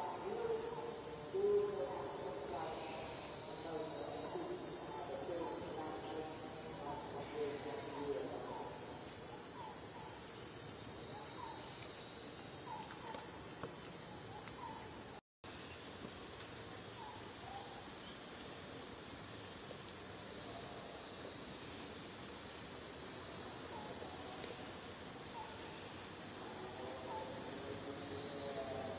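A steady, high-pitched chorus of insects droning in the forest, with faint short chirps lower down in the first half and again near the end. The sound drops out completely for a moment about halfway through.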